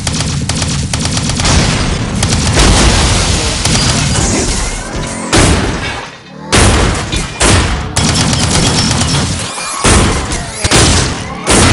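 Loud action-movie sound effects for a fight between giant mech robots: gunfire and booms over music, with several sudden blasts in the second half.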